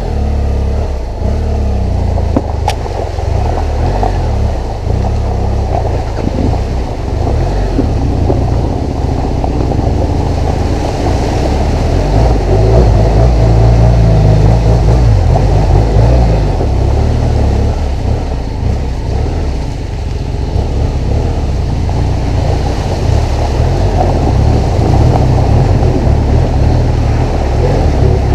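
Big adventure motorcycle's engine running as the bike is ridden, throttle rising and easing, with a steady low rumble. It gets a little louder about halfway through.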